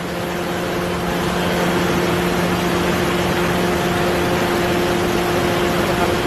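A steady mechanical hum over a loud, even noise, growing a little louder in the first couple of seconds and then holding steady.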